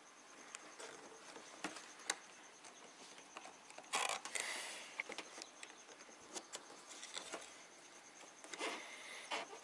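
Faint handling noises of wiring being pushed and fed into place in a car's engine bay: scattered light clicks and plastic wire loom rubbing and rustling, with a louder rustle about four seconds in and another near the end.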